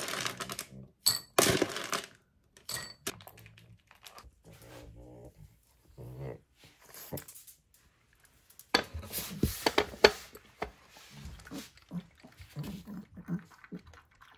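Dry dog kibble poured from a plastic container, clattering into a ceramic bowl for the first couple of seconds. About nine seconds in, the bowl is knocked down onto a wooden raised feeder, and a pug eats from it, with noises from the dog.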